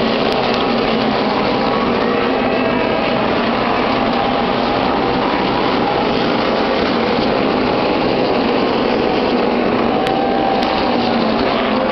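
NASCAR Cup stock cars' V8 engines racing around the oval: a loud, continuous drone of many engines, with individual engine notes gliding up and down in pitch as cars pass.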